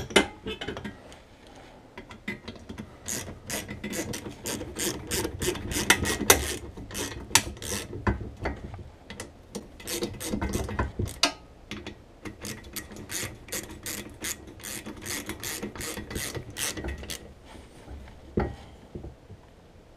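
Quick irregular runs of metallic clicking with handling knocks as a Champion 3000 lb winch is worked into its steel mounting plate on an ATV front bumper.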